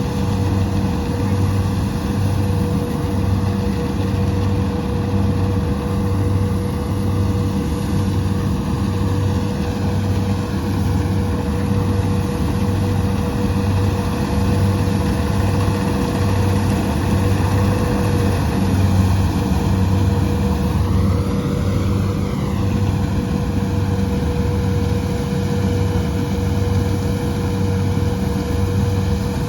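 Rice combine harvester running steadily, its engine throbbing at a regular pulse with a steady whine over it. The pitch rises and falls briefly about two-thirds of the way through.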